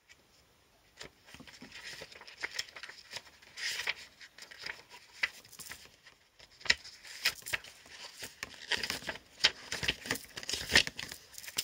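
Oracle cards and paper being handled: rustling and crinkling with scattered light clicks and taps. It starts about a second in and grows busier toward the end.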